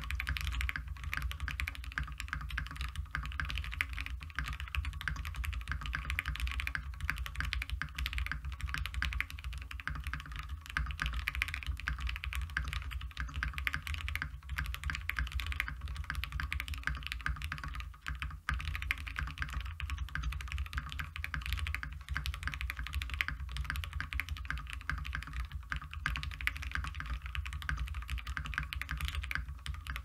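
Continuous rapid typing on an Iron180 custom mechanical keyboard with lubed, filmed Gateron Mink linear switches on an FR4 plate with plate foam: a dense run of keystroke clacks with a brief pause about 18 seconds in, over a steady low hum.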